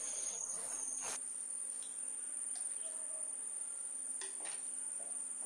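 A steel spoon stirring watery masala in a clay pot, giving a few light clicks and scrapes against the pot, over a steady high-pitched whine.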